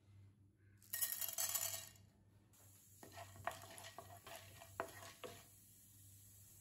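Urad dal tipped into hot oil in a nonstick frying pan, a loud rush of falling grains and sizzle lasting about a second, then a wooden spatula stirring the dal with several scrapes and taps against the pan over a faint steady sizzle.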